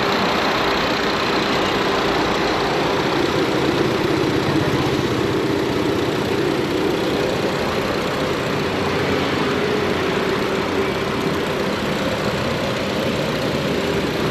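CNG-converted Volkswagen Vento's 1.2 TSI four-cylinder turbo petrol engine idling steadily, heard from over the open engine bay.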